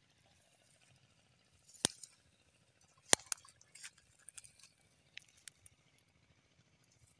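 A handful of sharp clicks and light ticks, the two loudest about a second and a quarter apart, followed by several fainter ticks.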